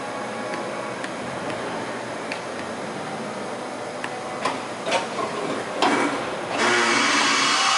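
A tool change on a Fadal 6030 vertical machining center: clicks and clunks as the umbrella-type tool carousel and spindle cycle, over a steady machine hum. A louder steady whir-and-hiss comes on near the end.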